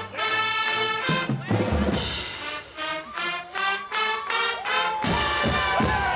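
Marching band brass playing a tune in short, punchy chords, with the drums coming in with a steady beat about five seconds in.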